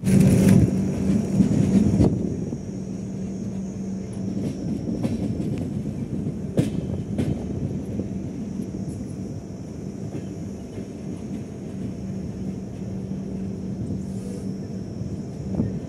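Passenger train running, heard from an open coach doorway: a steady rumble of wheels on the track, louder for the first two seconds, with a few sharp clicks over the rails.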